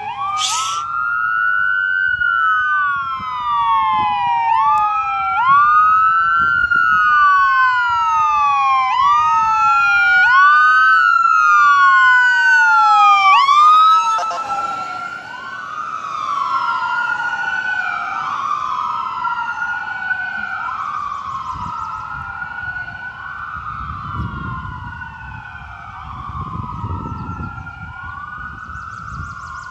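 Ambulance wail siren sweeping up and down about every two seconds, growing louder as it approaches and passes about fourteen seconds in, then dropping in volume and slightly in pitch as it drives away. After the pass the wail is doubled, with two sets of sweeps overlapping out of step, and a low engine rumble comes in near the end.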